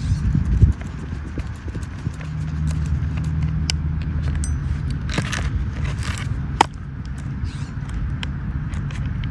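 Scattered clicks and light knocks of hands handling and working on a small battery chainsaw with its cover off, with a few short scrapes past the middle and one sharp click, over a steady low hum.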